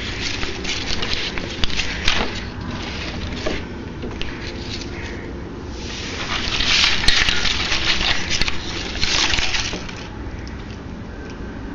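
Irregular crackling and rustling noise with scattered sharp clicks, loudest from about six to ten seconds in, then dropping back.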